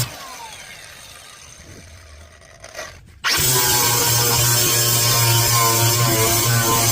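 Angle grinder with a flap disc switched off and winding down with a falling whine, quiet for about three seconds, then switched back on and running steadily.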